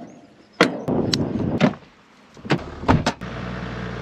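A run of sharp metal knocks and clanks as gear is packed up on the Toyota Land Cruiser HDJ100. About three seconds in, its turbodiesel straight-six engine takes over, running steadily.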